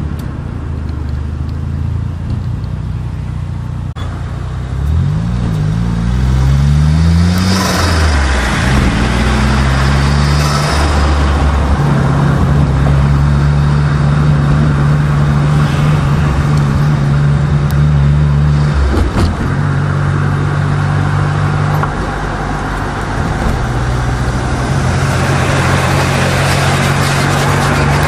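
Car engine running while driving. Its pitch rises and falls a few times between about five and ten seconds in, as it revs and changes gear, then settles into a steadier drone over road noise.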